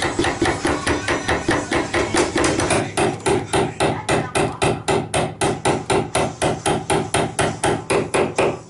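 A hammer rapidly striking a chisel held against wood, a steady run of sharp taps at about four strikes a second, as the chisel trims the end of a log shelf edge.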